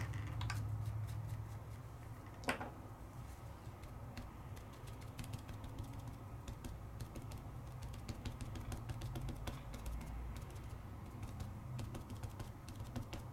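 Light, irregular taps and clicks of craft supplies being handled and dabbed on a tabletop while ink is put onto a stamped image, with one louder knock about two and a half seconds in. A steady low hum runs underneath.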